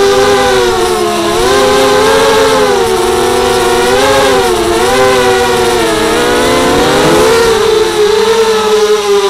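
Brushless motors and propellers of a 230 mm FPV racing mini quadcopter whining loudly in flight. The pitch swoops up and down again and again with throttle changes, then holds steadier near the end.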